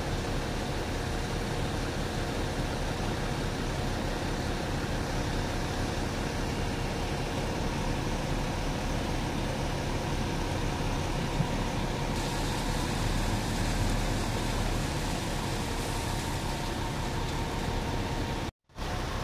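Fire engine's engine running steadily at the scene, a constant low hum with faint steady tones over it. It cuts out briefly near the end.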